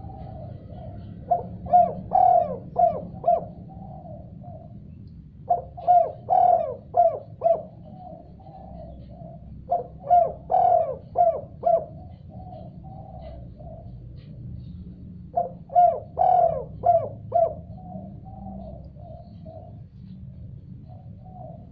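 Spotted dove (tekukur) cooing in four repeated phrases. Each phrase is a run of loud coos trailing into softer, quicker notes, over a faint steady low hum.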